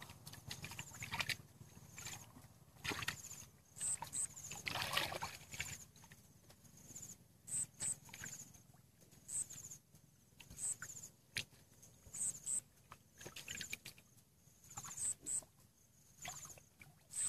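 Hands splashing and sloshing in shallow muddy water in irregular bursts while groping for fish by hand. Short high-pitched chirps repeat in the background.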